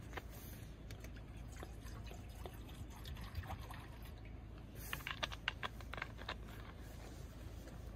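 Water poured from a plastic drink bottle into a metal pot, then a quick run of sharp crackles as the plastic bottle is handled.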